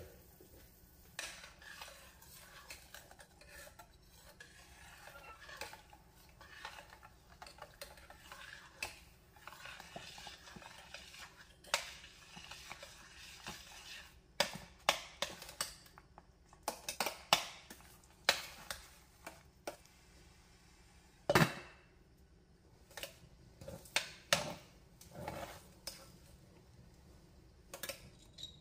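A glass lid clinks off a stainless steel saucepan, then a metal spoon stirs semolina in it. Soft scraping comes first, then repeated sharp clinks of the spoon against the pan, the loudest a little past the middle.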